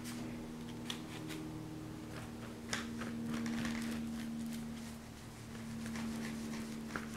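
Paintbrush scraping and swishing as it spreads thick paint over paper, faint short strokes over a steady low hum.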